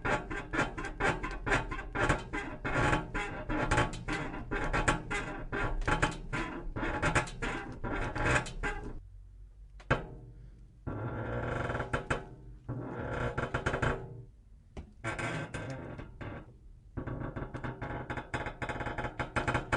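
Metal bed springs squeaking and creaking under bouncing weight: a fast, rhythmic run of short squeaks for about the first nine seconds, then four longer creaks separated by brief pauses.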